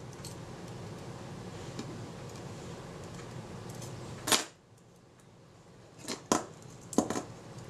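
Small metal clicks of tweezers and shutter parts being set in place: one sharp click about four seconds in, then a few lighter ticks near the end, over a faint steady hiss.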